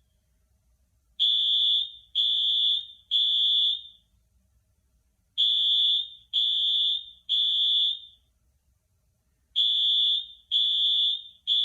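School fire alarm sounding a high-pitched beep in groups of three, with a pause of about a second and a half between groups. This is the temporal-three pattern that signals evacuation.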